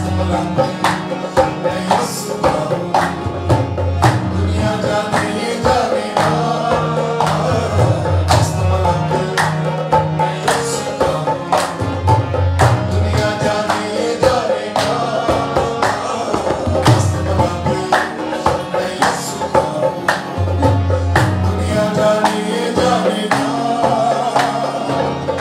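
Harmonium playing a devotional song with a man singing, accompanied by a regular beat of hand claps.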